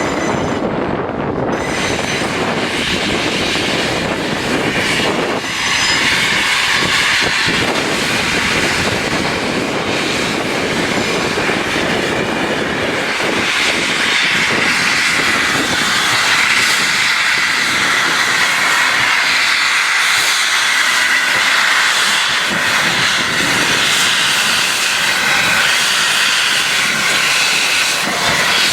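Steam-hauled passenger train, 60163 Tornado's train of coaches, running past at speed: a steady, loud rush of wheel and rail noise with no break.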